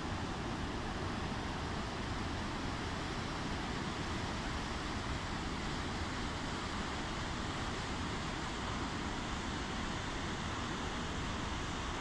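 Waterfall pouring over rocks into a pool: a steady, even rush of water.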